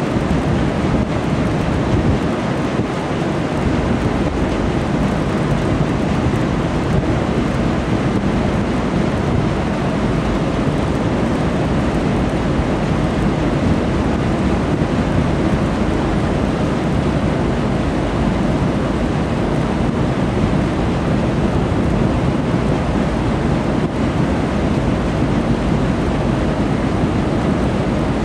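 Steady low rumble with a rushing hiss as a pushed convoy of loaded river barges passes close by: wind buffeting the microphone mixed with water washing along the barges' bows and hulls.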